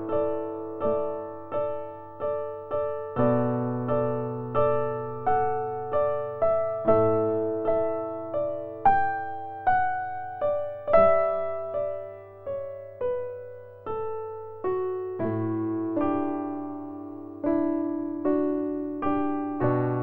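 Background piano music: slow, gentle notes struck about every two-thirds of a second, each ringing and fading before the next.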